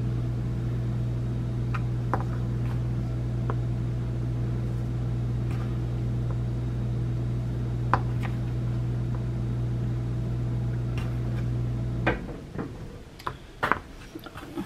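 A steady electrical hum from a running kitchen appliance, with a few light clicks and taps of flour being measured. The hum cuts off suddenly about twelve seconds in, followed by several sharp knocks and clicks.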